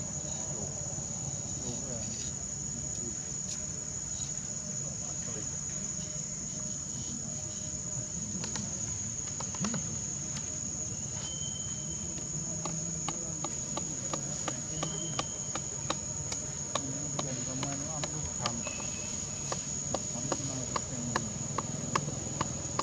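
Insects in the forest keep up one steady high-pitched whine. Over it, sharp clicks grow more frequent in the second half, and a few short high notes come and go.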